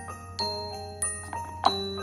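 Background Christmas music: a glockenspiel-like mallet melody of ringing bell notes, one after another, with one sharper hit near the end.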